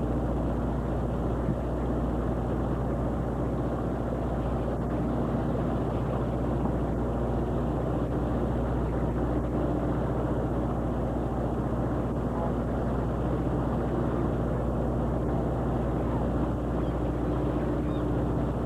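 A fishing boat's engine running at a steady pace, a constant low drone with no change in speed.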